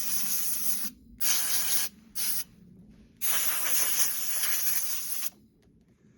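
Compressed-air blow gun hissing in four blasts of differing length, the longest about two seconds, blowing dust and loose fibres off a chainsaw's air filter.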